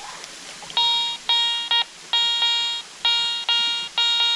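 Metal detector sounding its target tone as the coil is swept over a buried target: a run of about eight bright, pitched beeps, some short and some longer, starting under a second in. It is the good, strong ring of a deep target that the detector puts at about 6 inches down.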